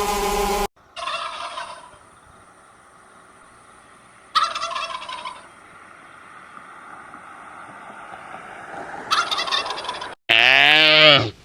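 A steady buzzing cuts off at the start, then a farm bird gives three short, rough, gurgling calls a few seconds apart. A loud, drawn-out animal call comes near the end.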